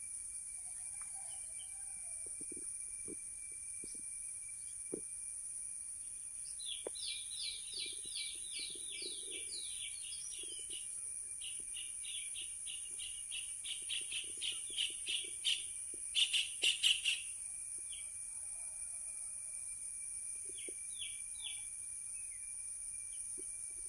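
A bird calling in series of short chirps: a run of quick downward-sweeping notes about seven seconds in, then a faster run of chirps building to its loudest burst just past the middle, and a few more chirps near the end. Underneath is a steady high-pitched insect drone.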